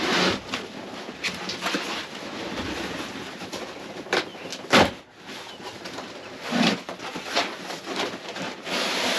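Rustling and scattered knocks from handling and unrolling a rolled truck bed mat and its packaging, with one sharp knock about five seconds in.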